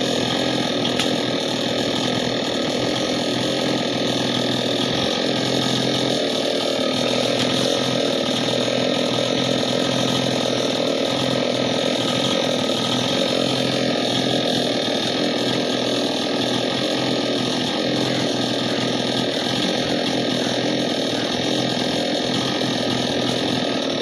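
Petrol chainsaw engine idling steadily, not cutting, without revving.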